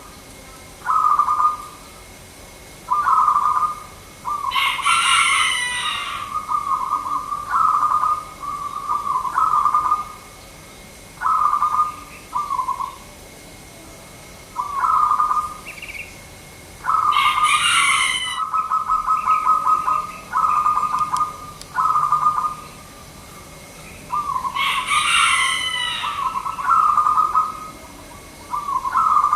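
Zebra dove (perkutut) cooing: short, rapid trilled phrases repeated every second or two. Three times a brief, louder and much higher call from another bird cuts in.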